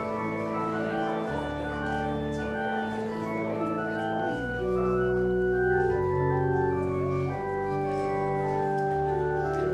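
Organ playing slow music: sustained chords over deep held bass notes that change every second or two.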